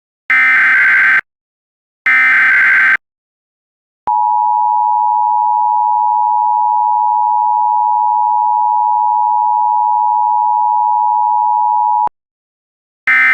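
Emergency Alert System test signal. First come two loud SAME data header bursts, each a buzzing warble about a second long. Then the two-tone attention signal holds steady for about eight seconds and cuts off abruptly, and a short end-of-message data burst begins near the end.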